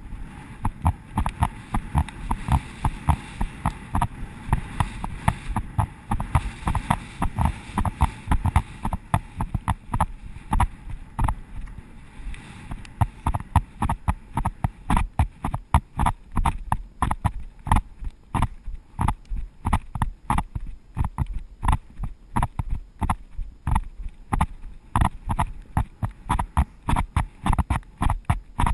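Horse's hoofbeats on firm dry ground, with rider and tack jostling in time, picked up by a rider-mounted camera: a steady, loud rhythm of about three beats a second. A low rumble sits under the beats for the first twelve seconds or so, then drops away.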